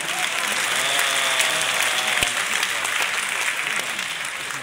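Audience applauding. The clapping is dense and steady, then dies away near the end.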